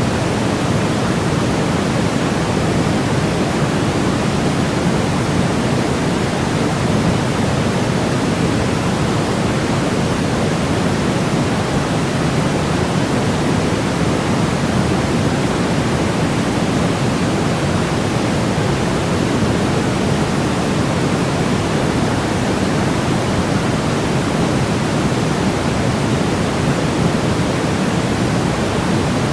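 Continuous electronically generated noise for baby sleep, a steady even hiss that never changes, heavier in the low end than pure white noise.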